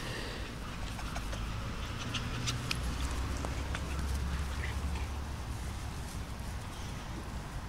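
Two small puppies playing on grass: faint rustling and a few small clicks over a steady low rumble, with no clear barking.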